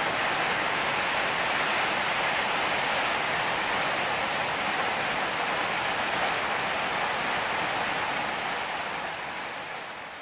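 Steady rain falling, an even hiss that begins to fade out near the end.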